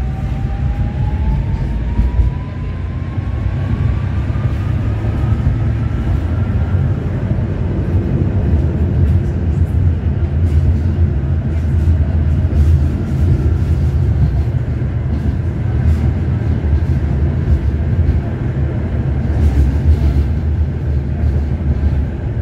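Tram running along its track: a steady low rumble, with a motor whine rising in pitch over the first several seconds as it accelerates, then fading. Scattered sharp clicks over the rumble later on.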